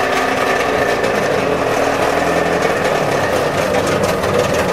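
A motor vehicle's engine running steadily and loudly, its pitch wavering slightly.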